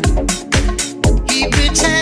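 House-style dance music remix: a steady four-on-the-floor kick drum at about two beats a second under pitched synth lines.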